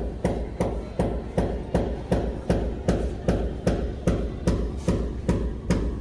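Steady, rapid hammer blows, about three a second, struck in an even rhythm during plumbing work.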